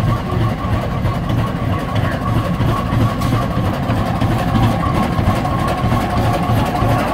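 Rumely OilPull tractor engine running slowly as the tractor drives past, a slow, even beat of about two exhaust strokes a second.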